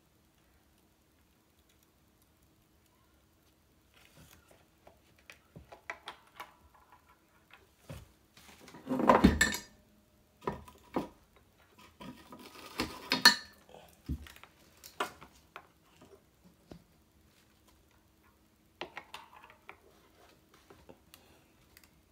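Intermittent handling noise of small tools and guitar-wiring parts being worked at a bench: scattered clicks and light clatter, with two louder clatters about nine and thirteen seconds in.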